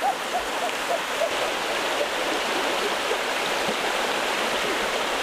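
Flowing river water rushing steadily, with a few short gurgling blips in the first second or so.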